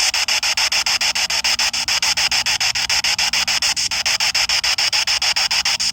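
Spirit box scanning through radio stations: a steady hiss chopped into rapid pulses, about ten a second.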